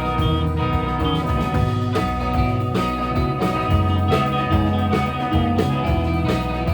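Live rock band playing an instrumental passage: electric guitar over bass and drums with a steady beat.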